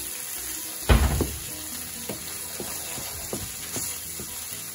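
Ground beef and tomato sauce sizzling in a skillet as a wooden spatula stirs and scrapes through it. There is one loud knock of the spatula about a second in, then lighter scrapes and taps every half second or so.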